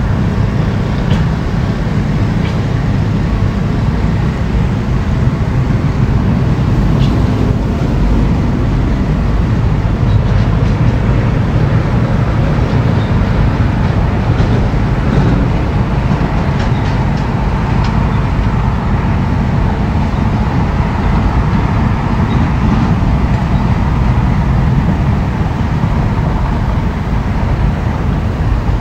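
Excavator's diesel engine running steadily under load, with a few light clicks and knocks in the middle stretch.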